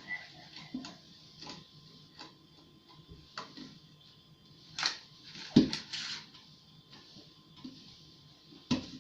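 A brief high whistle right at the start, then scattered sharp clicks and knocks; the loudest comes about five and a half seconds in.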